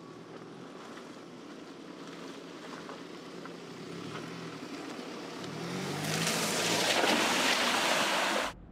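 Mercedes-Benz GLC 300d's four-cylinder diesel running at low revs, rising and falling as the SUV crawls down a rough dirt track and passes close by. A loud rushing noise builds about two-thirds of the way in, then cuts off abruptly near the end.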